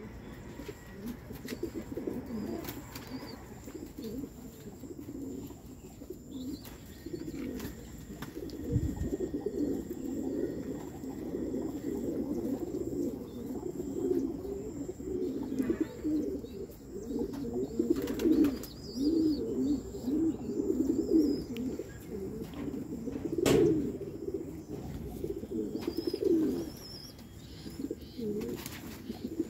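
A flock of domestic fancy pigeons cooing, many birds at once in continuous overlapping coos, with a few sharp clicks among them.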